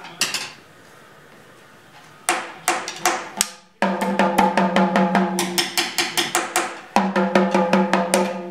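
Small toy drum beaten with a stick: a single hit, a pause, a few separate strikes, then a fast, uneven run of strikes that keeps the drum ringing.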